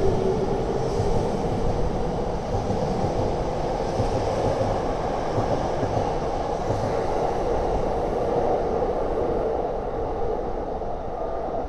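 Rinkai Line 70-000 series electric train running along the platform with a steady rumble and a motor whine that rises slightly in pitch over the first few seconds, then holds. The sound eases off a little near the end.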